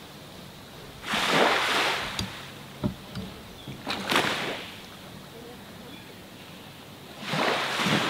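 Small waves washing onto a sandy beach, three gentle swells of surf about three seconds apart, with a few light splashes between them.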